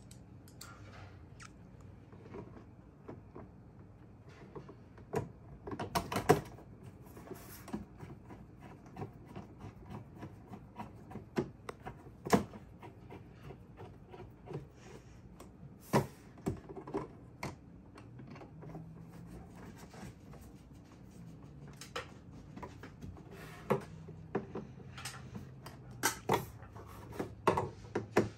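Scattered clicks and taps of plastic and a screwdriver as a 2010 Honda Pilot's third brake light housing is handled and fitted back onto the rear hatch. The clicks are irregular, with a handful of sharper knocks standing out.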